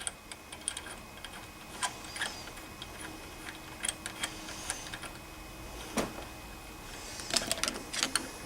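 Small metallic clicks and taps of a screwdriver and a brass nozzle being worked back into an aluminum lawnmower carburetor body. The clicks are scattered and irregular, with a sharper one about six seconds in and a quick cluster near the end.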